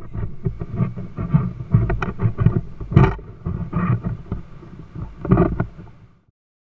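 Wind buffeting a camera microphone in flight under a tandem paraglider: an irregular, gusty low rumble with sharper blasts, fading out about six seconds in.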